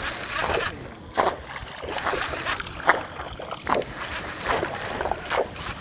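Short, irregular water splashes and slaps, roughly one or two a second, over a steady outdoor hiss: a topwater stick bait being twitched across the lake surface.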